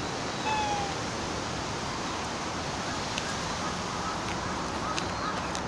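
Steady outdoor background hiss, like wind over the microphone. About half a second in there is one short falling call with several overtones, and later a few faint short chirps and light clicks.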